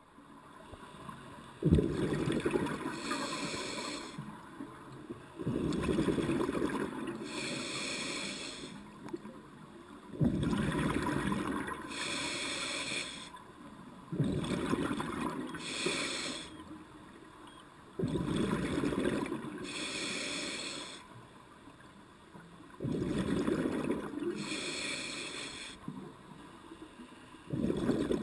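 Scuba diver breathing through a regulator underwater, about seven breaths at roughly four-second intervals, each a rush of exhaled bubbles and a hiss of air through the regulator.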